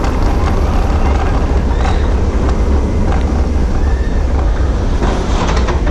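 Intamin inverted roller coaster train running at speed along its steel track: a loud, steady rumble of the wheels with occasional rattles, mixed with the rush of wind over the onboard microphone.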